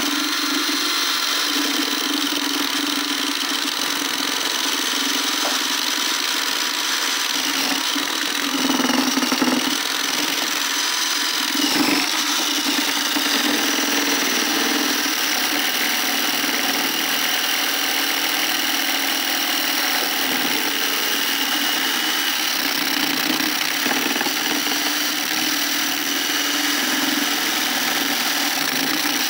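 Cordless drill-driver running steadily under load, grating the kernels off a corn cob.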